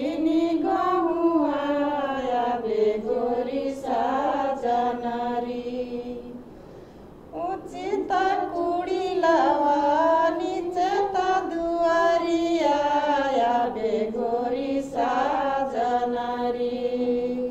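A woman singing a Tharu Jitiya festival song unaccompanied, in long held, chant-like phrases, with a short pause for breath about seven seconds in.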